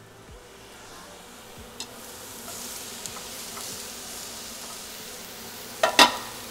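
Mushrooms sizzling in a hot frying pan, the hiss building over the first couple of seconds, with a few light clicks. Near the end come two sharp clanks as the glass pan lid is handled.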